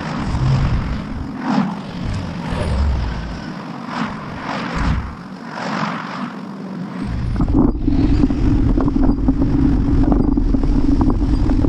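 Cars passing close by one after another, each swelling and fading, while the bicycle stands at the intersection. About seven seconds in it changes to a steady, louder rush and rumble with a low hum: wind and road noise on the bike-mounted camera as the bicycle rides off.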